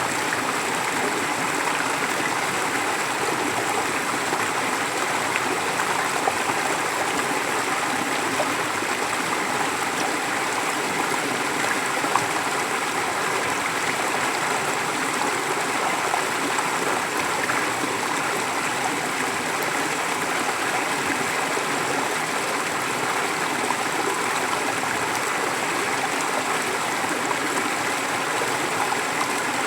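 Forest stream flowing steadily: a continuous, even rush of running water.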